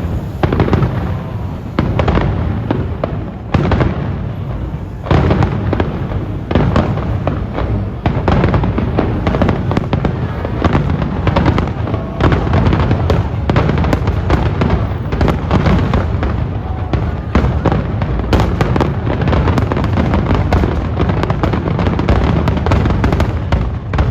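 Fireworks display: a dense barrage of shell bursts and crackling, booms following one another several times a second with hardly a break.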